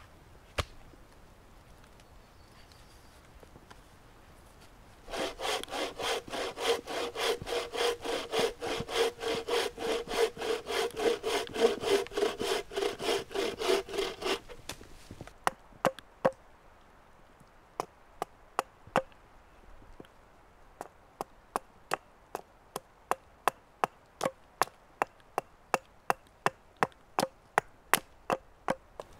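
Wooden-framed bow saw cutting through a log, with steady rapid back-and-forth strokes for about ten seconds. After a short gap comes a run of sharp knocks, a few at first and then quicker, as a hatchet strikes a wooden blank held upright on a log carving bench.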